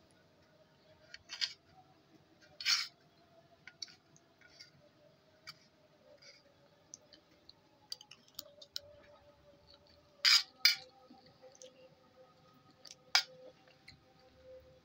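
A metal spoon clinking and scraping against a stainless-steel plate while scooping rice: scattered short clicks, the loudest a pair about ten seconds in, over a faint steady hum.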